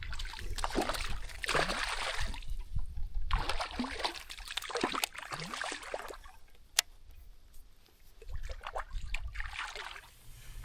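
Water splashing and sloshing in three bursts, with a single sharp click about seven seconds in.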